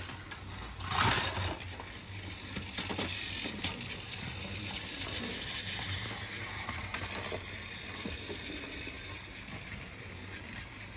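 Battery-powered toy train running on blue plastic track, a steady whirring rattle, with a few light clicks and knocks about a second and three seconds in.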